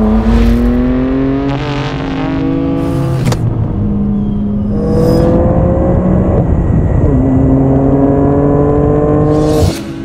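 Nissan Skyline GT-R R34 V-Spec's twin-turbo inline-six accelerating hard through the gears. The pitch climbs in each gear and drops back at each of several upshifts, with short hiss-like bursts around some of the shifts. The engine sound stops abruptly near the end.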